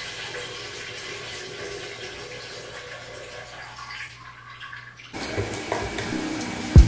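Running water in a bathroom, a steady hiss. About five seconds in it cuts off abruptly and music with a drum beat comes in louder.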